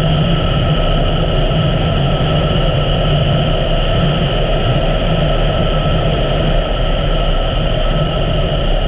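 2017 Honda Africa Twin's parallel-twin engine running at a steady cruise, mixed with wind and road noise. It holds an even pitch and level throughout, with no revving or gear changes.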